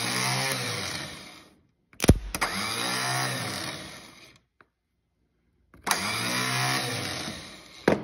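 Electric starter motor from a Kawasaki-engined Hustler ZTR mower spinning freely on the bench three times, each run opening with a sharp click as the lead touches the terminal, rising in pitch as it spins up, then running down after about two seconds. Power goes straight to the motor terminal, bypassing the solenoid, whose contact disc is not passing power, so the motor itself turns.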